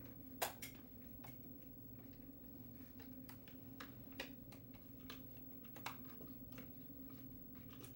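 Faint room tone: a steady low hum under scattered, irregular light clicks and ticks, the loudest about half a second in.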